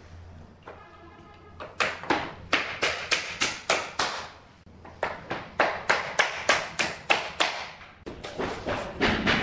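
Steel hammer tapping on wood in quick runs of sharp blows, about three to four a second, with a short pause partway through. Near the end the taps give way to a busier scuffling of wood being worked into place.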